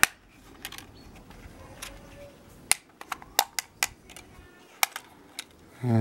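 Scattered sharp clicks and taps of a small screwdriver and hard plastic parts being handled while the battery-compartment screw of a plastic quadcopter is undone and the compartment opened.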